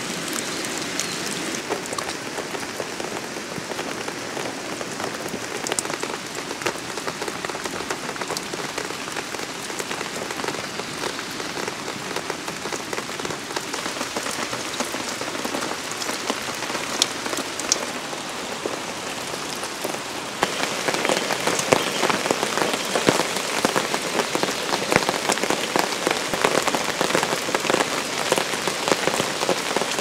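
Steady rain falling and pattering, turning louder and denser about twenty seconds in.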